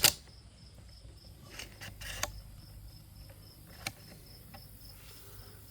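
A sharp metallic click at the start, then a few fainter clicks, from the action of a .22 bolt-action rifle being handled to clear a spent casing caught in it. Crickets chirp steadily in a fast, even pulse throughout.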